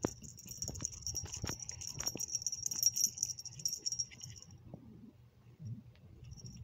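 A cat playing with a strip of receipt paper: paper rustling and crinkling with soft knocks of paws and teeth on it. A high jingling with quick ticks runs through the first four seconds or so, then stops.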